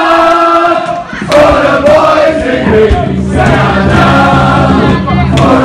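A crowd of guests singing together loudly with a live band, holding long notes; the band's low accompaniment comes in about halfway through.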